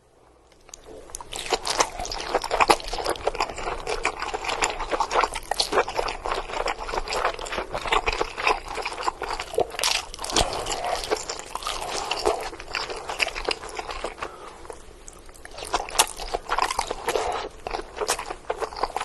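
Close-miked eating of king crab legs: dense, irregular crackling and crunching of shell with chewing, starting about a second in and easing briefly near the three-quarter mark.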